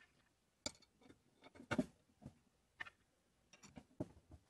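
Scattered light clicks and taps of a small steel screw and brass fittings being handled and set into a wooden plow plane, irregular, with a louder cluster of knocks a little under two seconds in.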